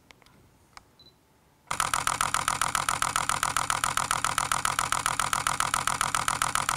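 Canon EOS R mirrorless camera's shutter firing a continuous burst in high-speed continuous drive, a rapid, even run of clicks at about eight frames a second that starts a little under two seconds in and keeps going. Just before the burst, a short high focus-confirmation beep.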